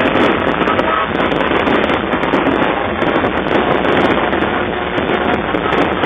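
Aerial fireworks bursting overhead in a dense, unbroken barrage of crackling and popping.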